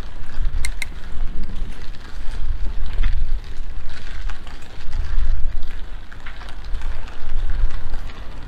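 City street ambience: a low, fluctuating rumble, with a couple of sharp clicks just under a second in.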